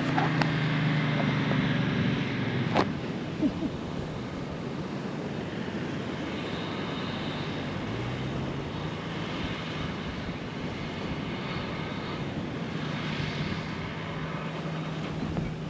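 Toyota LandCruiser 79 engine labouring as it tries to tow a caravan up a soft sand track, its revs rising about eight seconds in and holding. The rig is bogging in the sand with its tyres not let down.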